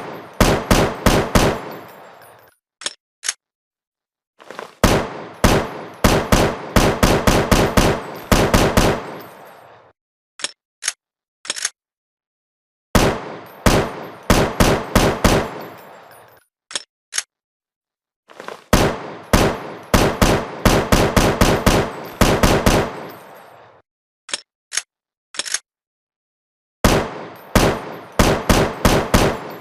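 AR-7 assault rifle sound effect: automatic fire in repeated bursts of several shots, about every five seconds, each burst followed by two or three short high clicks.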